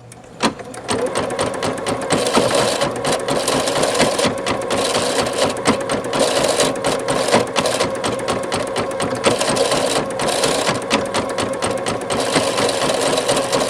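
Singer Futura XL-550 embroidery machine stitching at speed, with a loud rattling and clanking from the bobbin area: the bobbin-area rattle fault. It starts about half a second in.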